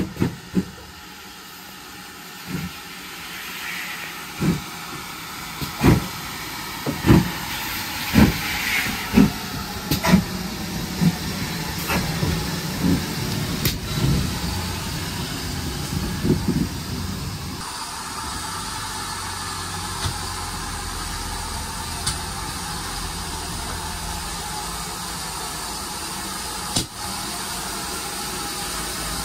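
GWR Large Prairie 2-6-2T steam locomotive 4144 getting under way amid hissing steam, its exhaust beats quickening from about one every two seconds to nearly one a second and growing louder. In the last part, after an abrupt change, a steady hiss and low rumble of the locomotive with a single sharp knock near the end.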